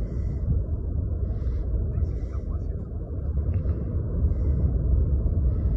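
A steady, deep rumble with no distinct pitch, heaviest in the lowest range and running without a break.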